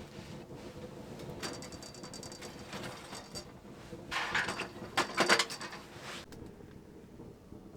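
Small camping wood stove being fed a log: rattling metal clicks from the stove door and latch, then louder clunks of wood and metal about four and five seconds in as the log goes in.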